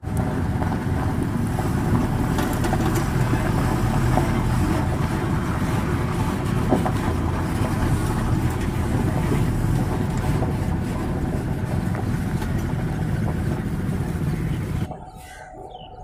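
Heavily loaded Tata truck's diesel engine running as the truck drives slowly past at close range. The sound drops off abruptly near the end.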